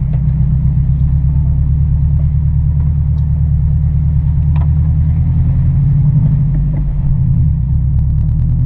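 Car engine and drivetrain rumble heard from inside the cabin, low and steady, as the car creeps off-road across wet, muddy ground, with a couple of faint knocks partway through.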